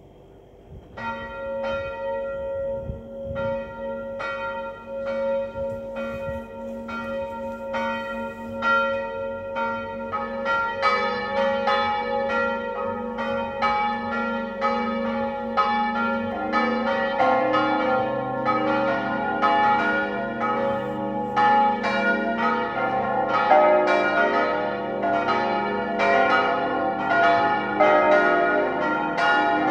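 Church bells, a peal of Johann Hahn bronze bells tuned as°–c'–es'–f'–as'–b', starting to ring for the full peal. One bell begins swinging about a second in with evenly spaced strokes. More bells join around ten seconds and deeper ones around sixteen seconds, building into a dense, overlapping clangour of the full peal.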